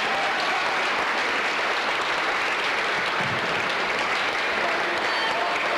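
Crowd applauding, a dense steady clapping that swells up at the start and holds without a break.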